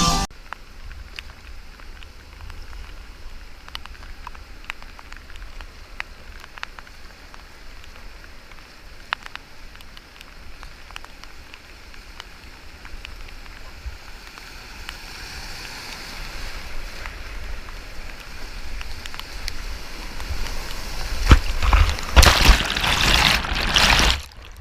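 Whitewater rushing and splashing, picked up by an action camera, with scattered sharp drip-like ticks. The water noise swells from about halfway through and turns into loud, heavy splashing in the last few seconds before cutting off suddenly.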